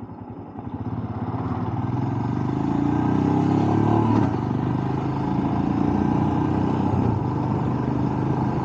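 Motorcycle engine rising from a low idle, climbing in pitch and loudness over the first few seconds. It drops in pitch about four seconds in, then runs steadily.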